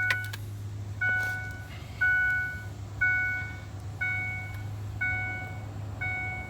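2004 Ford F-150's dashboard warning chime dinging evenly once a second, seven times, as with the key in the ignition and the driver's door open. A steady low hum runs underneath.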